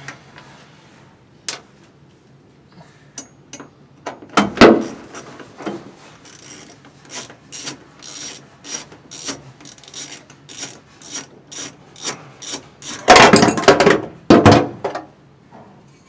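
Socket ratchet clicking steadily, about three clicks a second, as the 10 mm bolts holding a stock gas-pedal bracket are backed out. Loud metal knocks and rattling follow near the end as the pedal assembly is worked loose.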